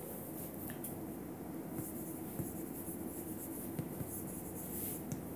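Chalk writing on a chalkboard: quiet, short scratchy strokes as words are written.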